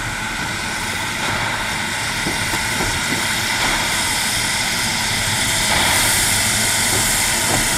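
Steam motor coach No. 1, the 'Coffee Pot', running along the line: a steady mechanical running sound with several held tones, slowly growing louder as it comes nearer.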